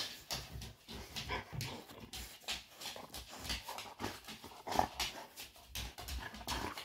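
Dogs moving about on a hardwood floor: irregular soft clicks of claws, with rustling close by.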